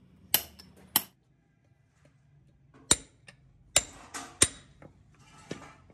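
A hand hammer striking a metal brake shoe, about seven sharp metallic blows at uneven intervals, with a few coming close together past the middle, some ringing briefly.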